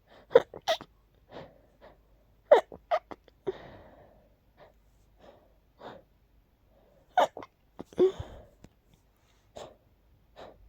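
A person sneezing repeatedly in short sharp clusters, with breathy gasping inhales of the buildup between the sneezes.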